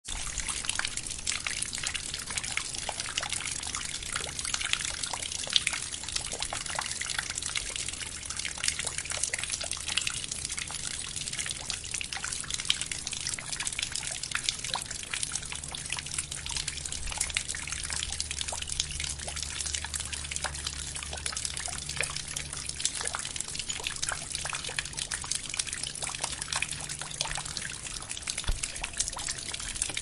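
Heavy rain falling steadily, a dense, irregular spatter of individual drops hitting close by.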